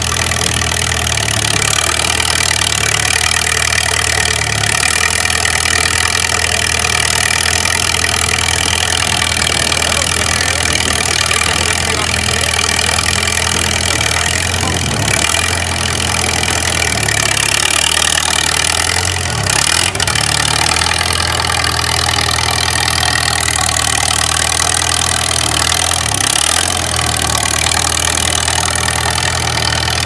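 Four-cylinder water-cooled Waukesha FC engine of a Clark CA-1 airborne bulldozer running steadily as the small crawler dozer is driven, its note dipping briefly a few times.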